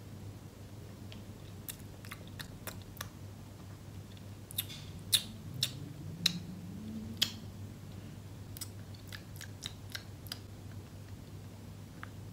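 A jelly bean being chewed with the mouth closed: scattered wet mouth clicks, coming thickest and loudest in the middle.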